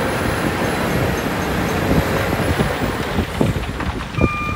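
Dump truck with its tipper bed raised, engine rumbling while dirt and rocks slide and tumble out of the bed with irregular thuds. Near the end a truck's reversing beeper sounds once.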